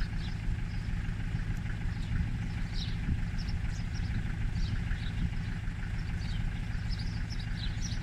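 Steady low hum of an engine idling, with small birds chirping in short calls again and again.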